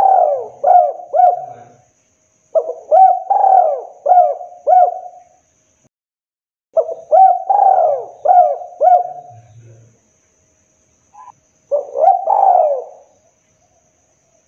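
Spotted dove (derkuku, tekukur) cooing: four phrases, each of three or four short rising-and-falling coos, with pauses of a second or two between them. This is the call played as a lure to draw wild spotted doves.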